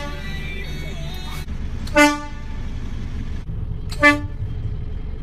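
Two short, loud blasts of a vehicle horn about two seconds apart, each a single pitched note that rings on briefly, over a steady low road rumble.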